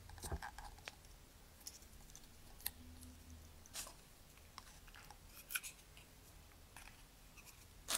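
Faint paper rustles and small scattered clicks as hands press and handle paper wings on a rolled-paper firework tube.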